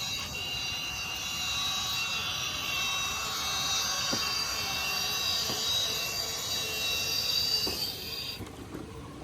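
Electric motor and gears of an RC off-road truck whining steadily at a high pitch, then cutting out about eight seconds in.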